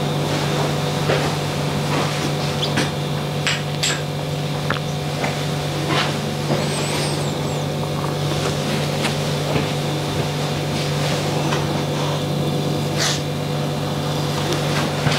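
Straight razor scraping over facial stubble in a few short, scratchy strokes, over a steady low hum.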